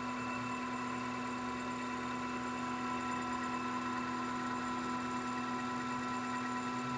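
Metal lathe running steadily while taking a facing cut across the front of a workpiece, its drive giving a constant whine of several steady tones.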